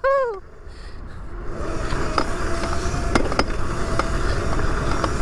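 Small electric motorbike riding over a bumpy off-road track: wind rushing over the microphone and tyre rumble, a faint steady motor whine in the middle, and a few sharp knocks as the bike jolts over bumps.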